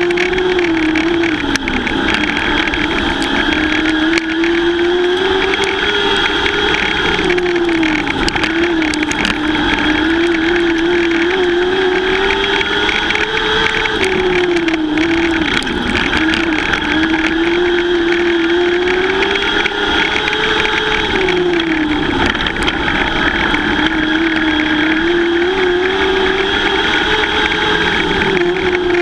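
Lightning sprint cars racing on the track, their engines running hard. The engine pitch rises on each straightaway and falls off into the turns, repeating about every seven seconds as the field laps.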